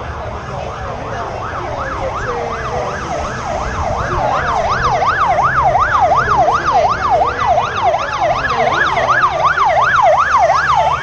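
Emergency vehicle's siren on a yelp setting, its pitch sweeping up and down about three times a second. It grows louder from about four seconds in as the vehicle comes closer.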